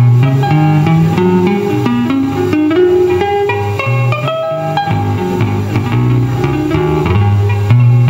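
Live instrumental music: a busy run of short plucked guitar notes over a moving bass line.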